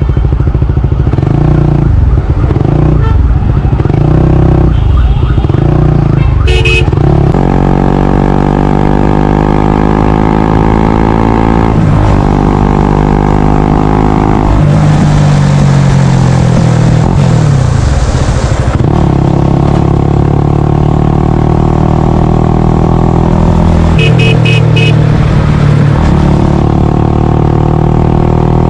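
Honda CBR125R/150R single-cylinder engine running through a Yoshimura R77 full exhaust system. The engine note climbs steadily, drops once about twelve seconds in as the bike shifts up, climbs again, then falls away as it slows.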